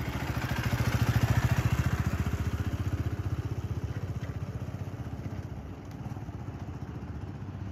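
Motorcycle engine running as the bike pulls past and rides away, its rapid exhaust pulsing loudest about a second in and fading as it moves off.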